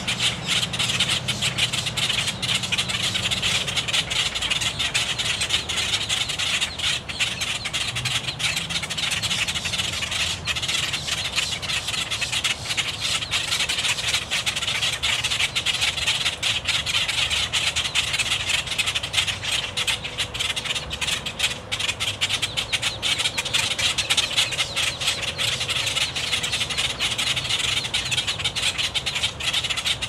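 A group of female boat-tailed grackles giving harsh, unmusical clucks in a rapid, continuous chatter. The calls are their alarm at an intruder entering the nesting ground.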